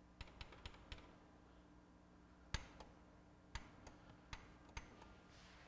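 Faint steady hum with a string of small sharp clicks from the opened Pioneer PD-DM802 CD changer and the hands working it: a quick run of four just after the start, then single clicks spread out, the loudest about two and a half seconds in.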